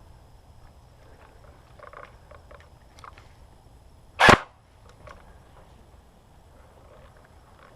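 One loud, sharp airsoft gun shot a little past the middle, set against faint scattered knocks and rustles.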